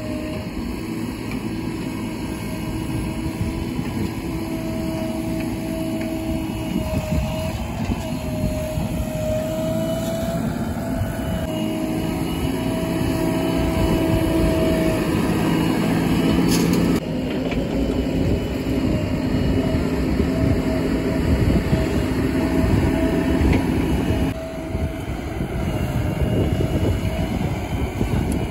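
Diesel engines of JCB backhoe loaders and tipper trucks running under load during digging and loading, with a steady whine that wavers slightly in pitch. The sound shifts abruptly twice, about two-thirds of the way through and again near the end.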